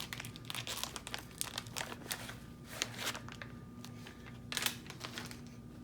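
Plastic wrapping of a pack of screen-cleaning wipes being handled, crinkling with irregular crackles and rustles.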